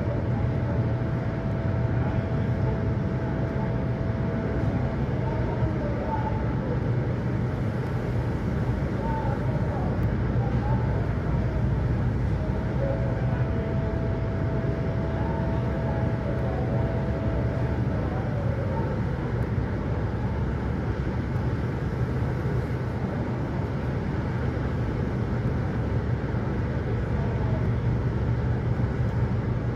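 A steady low mechanical hum with a rushing noise, with a thin steady whine for several seconds near the start and again in the middle.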